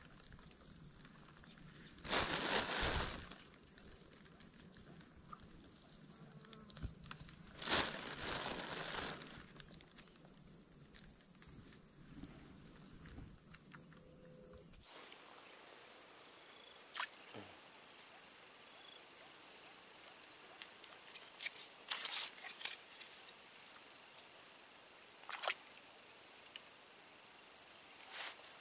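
Steady high-pitched insect chorus, growing louder about halfway through. Near the start there are a couple of brief crinkles of a plastic bag as cricket bait is taken out and put on the hook.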